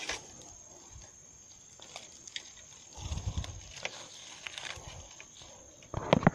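Dry leaf litter crackling and rustling as a landed emperor snakehead is handled and lifted off the ground. There is a short flurry about three seconds in and a louder burst of crackles near the end.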